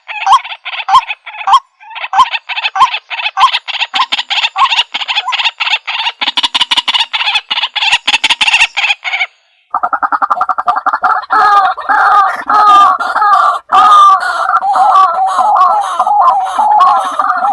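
White-breasted waterhen calling: a run of repeated notes, about three to four a second, cuts off suddenly about nine seconds in. After a short break comes a denser, continuous warbling call.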